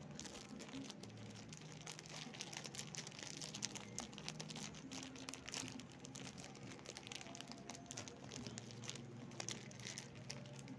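Foil-lined plastic snack wrapper crinkling as it is torn and twisted open by hand, a continuous patter of small crackles.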